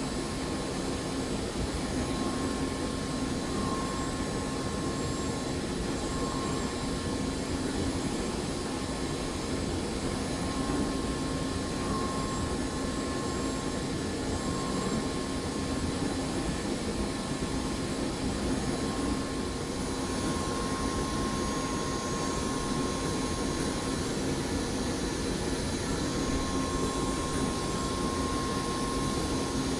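Hermle C12 five-axis CNC machining centre running a milling job: a steady whine at several fixed pitches over an even hiss.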